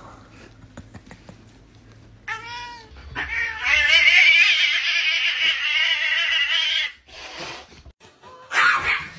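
A domestic cat gives a short meow about two seconds in, then a long, harsh yowl of nearly four seconds, a cat's warning at a dog close by.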